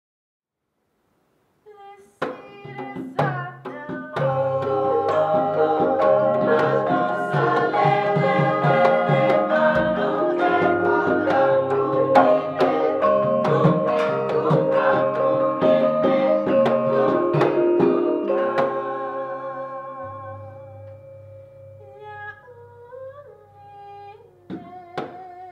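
Javanese gamelan playing a lancaran in slendro pathet sanga. It starts about two seconds in with a few lone strokes. The full ensemble of bronze metallophones, gong chimes and gongs comes in loudly about four seconds in, then drops to a soft passage about twenty seconds in with a voice singing over it.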